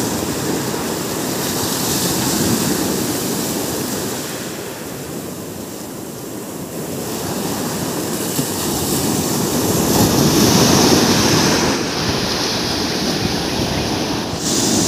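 Ocean surf breaking and washing up the sand in a steady rush, swelling louder as a wave comes in about two seconds in and again about ten seconds in.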